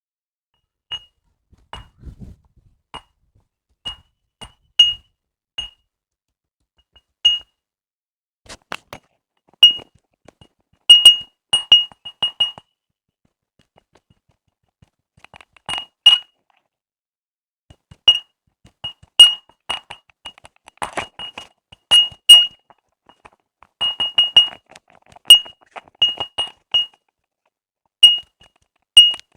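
Irregular sharp clinks and pings, each with a short high ring, separated by dead silence and coming more often in the second half.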